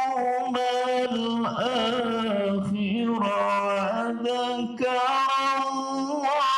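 A man reciting the Qur'an in the melodic tilawah style into a microphone, drawing out long, ornamented notes that waver in pitch, with only brief pauses for breath.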